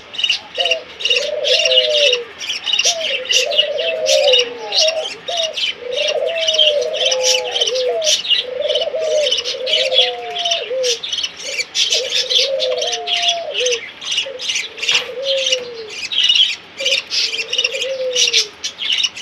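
Birds calling: a low, arched, cooing call repeats about once a second under constant high-pitched chirping.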